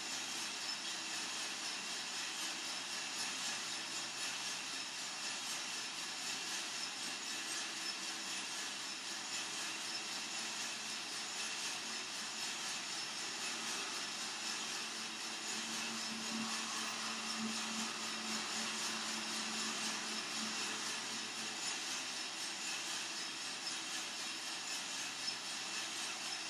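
Coffee-Tech FZ-94 lab coffee roaster running steadily mid-roast, its fan and drum giving an even hiss-like noise. A faint low hum joins for several seconds past the middle.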